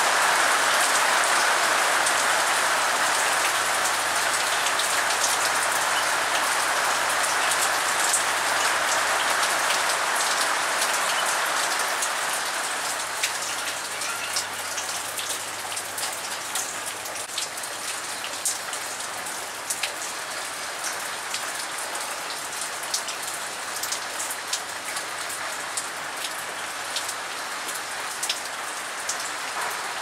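Rain falling steadily, heavier at first and easing off about halfway through, after which the taps of single drops stand out more clearly.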